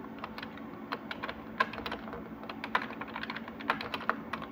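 Computer keyboard keys being pressed in an irregular run of clicks.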